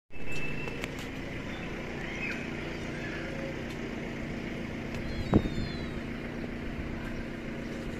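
Street ambience: a steady low traffic rumble with a constant engine-like hum. A single sharp thump comes about five seconds in, and a few faint high chirps come soon after.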